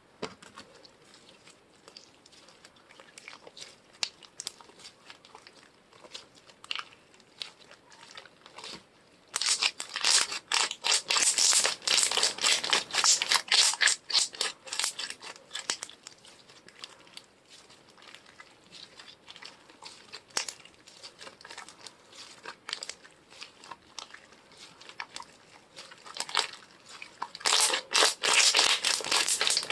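Slime being squished and stretched by hand, giving off dense crackling, popping clicks. The clicks are soft for the first nine seconds or so, then much louder for about six seconds, and loud again near the end.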